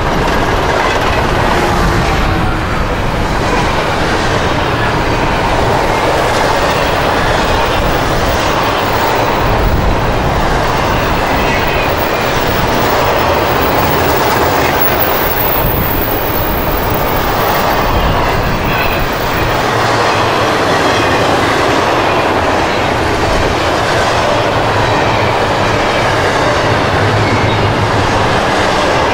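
Double-stack intermodal freight train passing close by: the steady, loud rumble and clatter of its container-laden well cars rolling on the rails.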